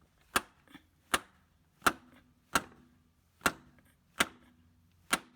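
Hammer blows driving a new front CV axle into the transmission of a 2005 Dodge Grand Caravan, seating its splines and retaining ring: seven sharp strikes about one every three-quarters of a second, some with a short ring after.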